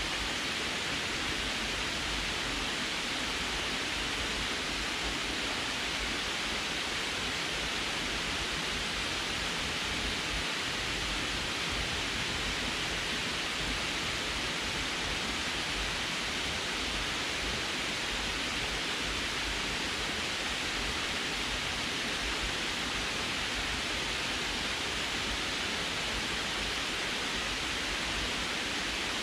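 Water pouring over a concrete canal dam spillway and splashing into the pool below: a steady, even rushing.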